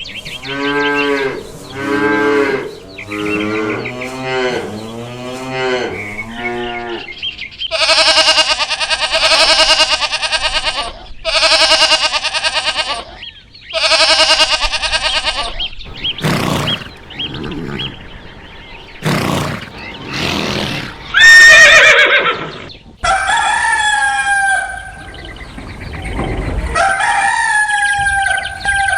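Farm animals calling one after another, including a rooster crowing: a run of short repeated calls over the first several seconds, three long calls in the middle, a few shorter calls, then two long calls near the end.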